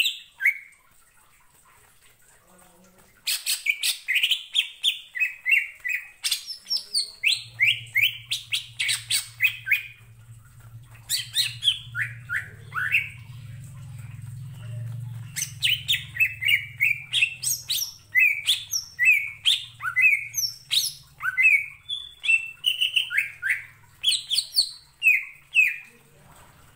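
Green leafbird (cucak ijo) singing loudly in fast strings of short, sharp whistled notes that sweep down and up, mixed with clicks. The song starts about three seconds in, after a quiet gap, and a faint low hum runs underneath through the middle.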